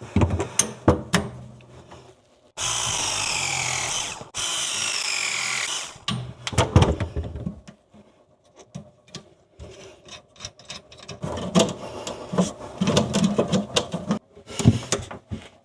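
Milwaukee M12 ProPress tool running a press cycle on a copper fitting: a steady motor whine of about three seconds, briefly broken in the middle, falling in pitch as the jaws load up. Scattered clicks and knocks follow.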